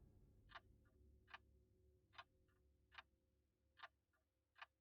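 Faint, regular clock ticking, about one tick every 0.8 seconds, over near silence with a faint steady hum.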